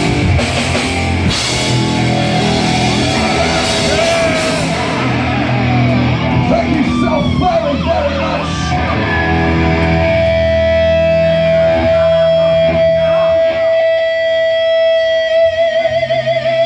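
Live heavy metal played on distorted electric guitars with drums and cymbals; the drums stop about five seconds in. From about ten seconds in, a single electric guitar note is held and rings on, wavering in pitch near the end.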